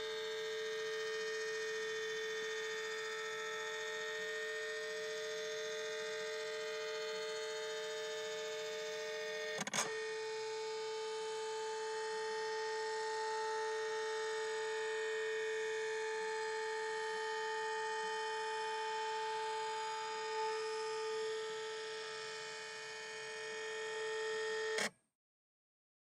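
Computer flatbed scanner running a scan, its motor giving a steady multi-tone whine as the scan head travels. A click about ten seconds in shifts the pitch of the whine, and it cuts off abruptly about a second before the end.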